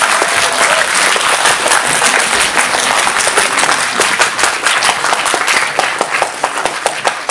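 Audience applauding: dense clapping from a theatre crowd, easing off slightly near the end.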